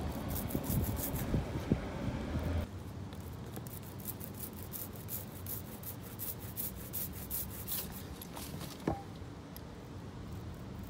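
Small hand ink roller (brayer) rolling tacky printing ink over a palette and onto a cast-iron manhole cover, making a dry, crackly rubbing sound. Over the first couple of seconds a louder steady background noise runs under it, then cuts off abruptly.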